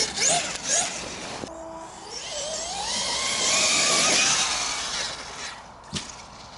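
High-pitched electric motor whine rising in pitch, with a hissing rush that swells and then fades, and a sharp click near the end.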